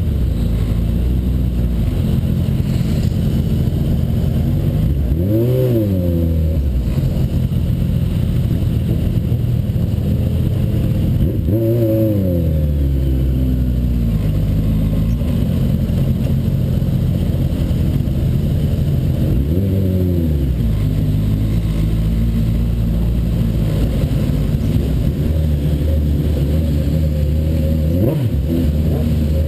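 Suzuki Bandit 1200's inline-four motorcycle engine running steadily, revved up and back down three times, about six, twelve and twenty seconds in.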